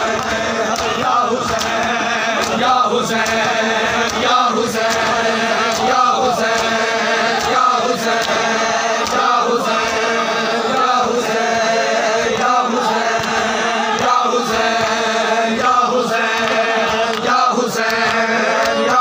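A noha, a Shia lament, chanted loudly by a crowd of men in unison, in short phrases that repeat about every one and a half seconds. Under the chant are the slaps of matam chest-beating.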